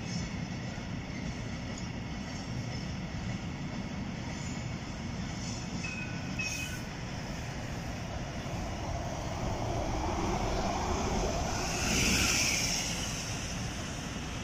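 Van Hool Exqui.City bi-articulated Mettis bus approaching and passing close by, its running noise growing to a peak about twelve seconds in, with a high whine at the loudest point, over a steady low rumble of background traffic.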